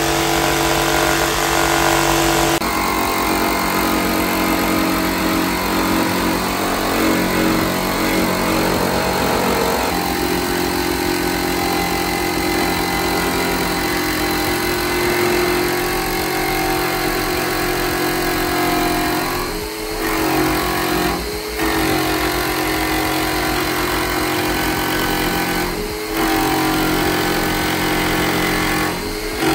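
Jigsaw cutting through the sheet-steel roof of a Mazda B2200 pickup cab, the motor and blade running steadily as it saws along the line. The sound briefly lets up a few times in the second half.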